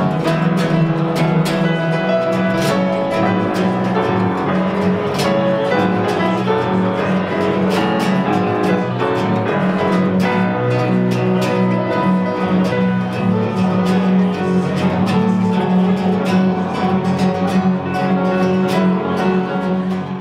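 Live instrumental music: a classical (nylon-string) guitar playing plucked notes in a duet with a grand piano.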